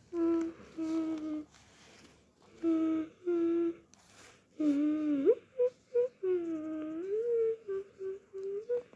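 A person humming a tune in short phrases, with pauses between them and a quick upward slide of pitch near the middle.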